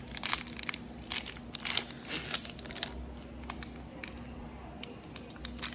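Foil wrapper of a Prizm basketball card pack crinkling and tearing as it is pulled open by hand, in irregular crackles that bunch up in the first couple of seconds and again near the end.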